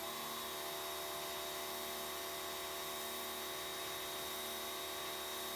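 Pressure washer running steadily and loud: a constant motor hum with a high whine over the hiss of the spray. It cuts off abruptly at the end.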